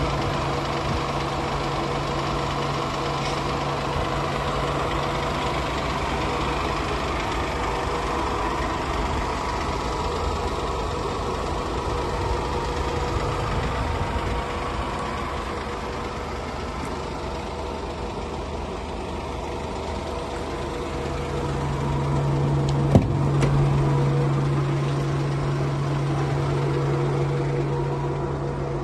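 Mercedes van engine idling steadily, its low hum growing stronger about three-quarters of the way through, with a single sharp click shortly after.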